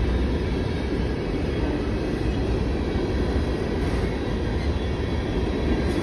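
Coal train's hopper cars rolling past at close range: a steady rumble of steel wheels on rail.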